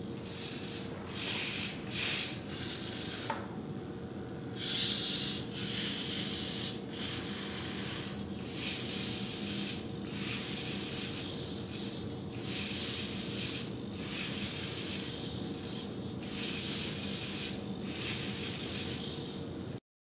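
Servo motors of two 3D-printed robot arms whirring and buzzing in repeated spells of about a second as the joints move, over a steady electrical hum. The sound cuts off suddenly near the end.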